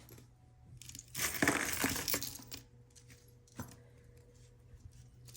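Pieces of costume jewelry clinking and rattling together as they are handled and set down, a jangle lasting about a second, followed by a single light click a little later.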